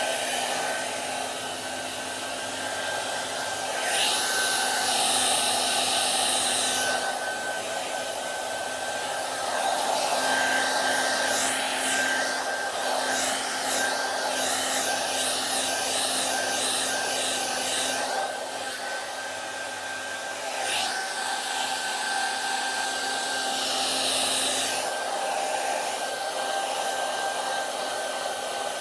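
Hand-held hair dryer running continuously, a steady airy hiss with a faint whine, swelling louder and brighter for a few seconds at a time, several times over.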